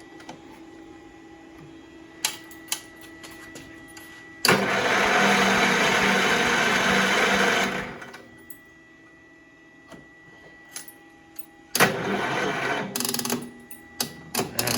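An Allis-Chalmers tractor's Kohler engine being cranked over by its starter twice, about three seconds each time, without firing. It turns over on a low battery, in an engine whose owner suspects low compression from worn rings or a burnt valve.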